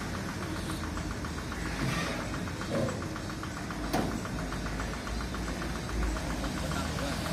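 Road traffic of trucks and cars: a steady engine rumble with a fast, even ticking running through it, and one short sharp knock about four seconds in.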